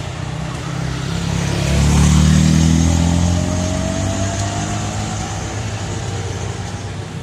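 An engine passing close by: it grows louder to a peak about two seconds in, with a pitch rising as it pulls away, then settles into a steady rumble.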